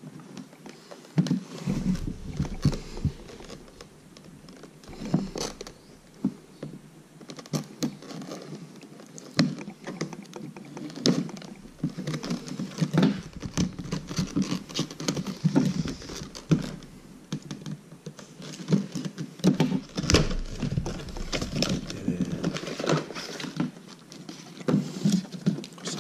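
A cardboard product box and its clear plastic packaging being handled and opened by hand: irregular rustling, scraping and small knocks and clicks.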